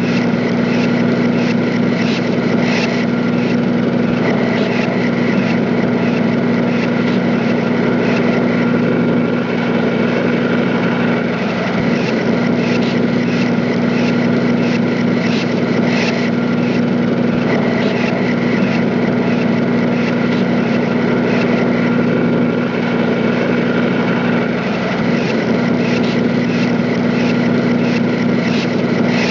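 A machine running steadily with a low, unbroken drone, and faint light knocks now and then.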